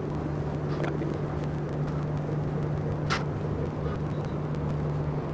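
Steady low drone of a passenger ferry's engines holding one deep hum, with a brief sharp click about three seconds in.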